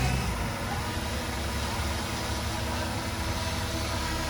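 Diesel engine of heavy earthmoving equipment running steadily at a low, even note, with no revving or impacts.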